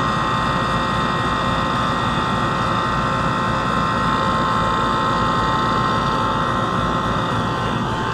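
Central air conditioner's outdoor condensing unit running steadily: the condenser fan's rushing noise with a constant whine over it. It is cooling again with a newly replaced contactor in place of the burnt one.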